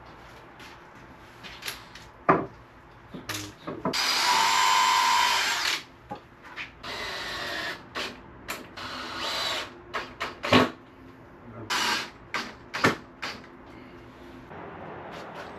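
Power drill running in bursts: one long run of about two seconds starting about four seconds in, then two shorter runs, with sharp knocks and clicks in between.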